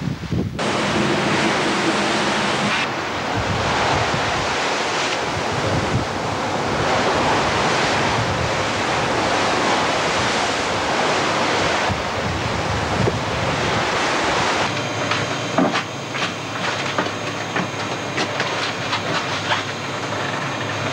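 Wind buffeting the camcorder microphone over the rush of the open sea on board a boat, a dense steady noise that changes abruptly a few times. From about three-quarters of the way through it turns into a rougher noise with many small clicks and rattles.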